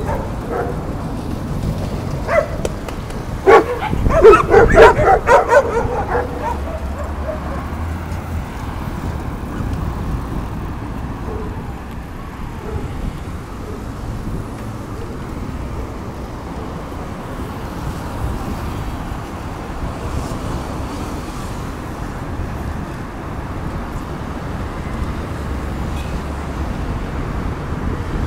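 A dog barking, a quick run of loud barks between about three and six seconds in, then steady road and traffic noise heard from a moving bicycle.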